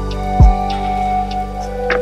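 Background music: sustained synthesizer-like chords with a deep booming bass hit about half a second in.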